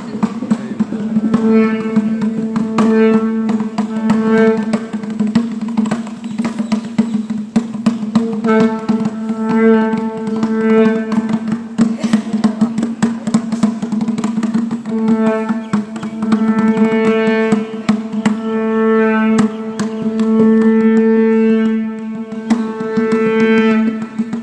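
South Indian temple music: a nadaswaram playing long held notes in phrases over a steady drone, with tavil drum strokes throughout. The melody pauses twice, while the drone and drumming go on.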